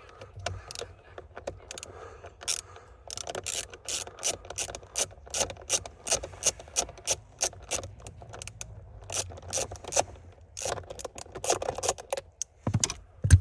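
Hand ratchet clicking in quick, even strokes, about three a second, while it undoes a T25 Torx bolt.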